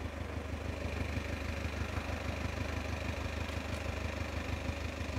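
A vehicle engine idling steadily with an even low hum.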